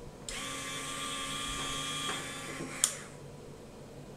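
Small electric winch motor of an RC scale tow truck running with a steady high-pitched whine as it winds in the boom chain, then stopping with a sharp click after about two and a half seconds.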